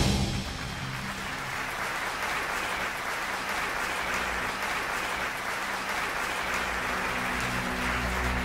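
Audience applauding steadily, an even wash of clapping, as loud music cuts off at the start.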